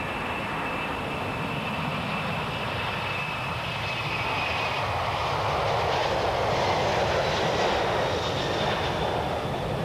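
Boeing 747-400 jet engines on departure: a steady high whine over a rushing engine noise that swells louder about six to eight seconds in.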